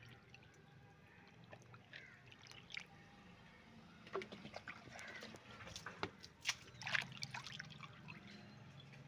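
Faint, scattered water drops plopping onto the surface of a water-lily tub, with a light trickle, as the tub is topped up with water to flush the scum layer off the top.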